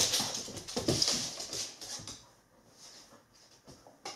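A goldendoodle's paws scuffing and clicking on a hardwood floor as she moves off with a toy in her mouth. The sound is louder in the first two seconds, then only faint scattered ticks.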